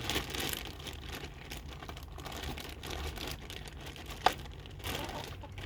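Cardboard and plastic packaging rustling and crinkling as new chainsaw parts are handled, with one sharp click a little past four seconds in.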